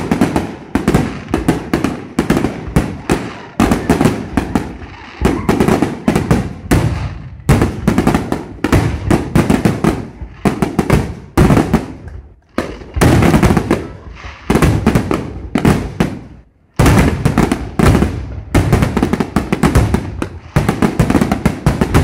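Fireworks display: aerial shells bursting in rapid succession, several bangs a second with crackle between them, easing off briefly twice before picking up again.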